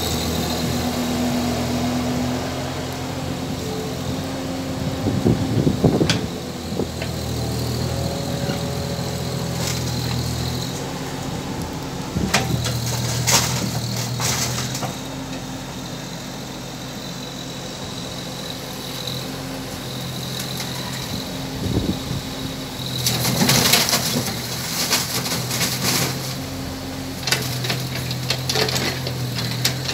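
JCB mini excavator's diesel engine running under load as the machine works its hydraulics and crawls up onto a flatbed truck, pushing off the ground with its bucket. The engine note rises and falls with the load, and metal clanks and scrapes from the tracks and bucket come in several bunches.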